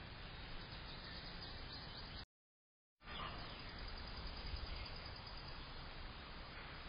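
Steady outdoor background hiss picked up by a security camera's microphone, with faint bird chirps. It drops to dead silence for under a second about two seconds in, where one recorded clip ends and the next begins.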